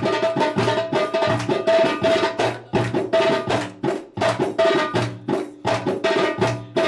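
Middle Eastern belly-dance music: fast hand-drum strikes in a quick, driving rhythm under a sustained melody line.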